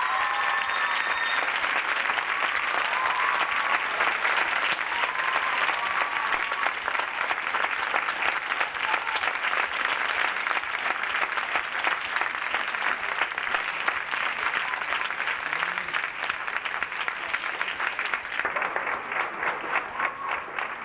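Audience applauding, a dense steady clapping with a few shouts in the first several seconds, thinning to scattered separate claps near the end.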